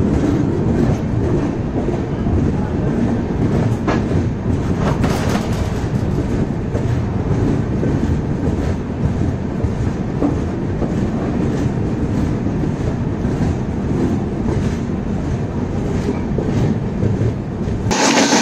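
LHB passenger coach running at speed: a steady rumble with the clickety-clack of wheels over the rails and a few sharp clicks about four to five seconds in. Near the end the sound changes abruptly to a thinner hiss.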